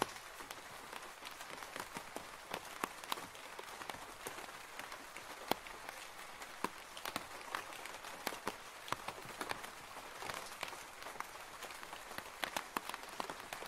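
Rain falling on a roof: a steady hiss with many irregular, sharp individual drop hits.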